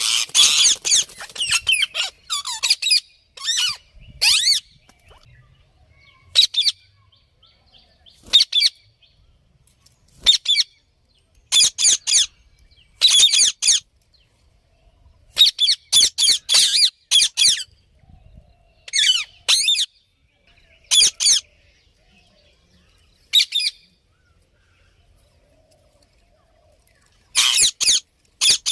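Indian ringneck parrot giving sharp, high-pitched screeching calls in quick runs of several, with pauses between the runs and a longer quiet spell a little past the middle.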